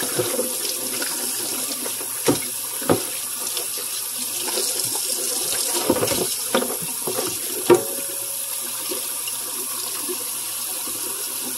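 Kitchen faucet running steadily into a metal sink, with about five short knocks from a raw turkey being handled under the stream.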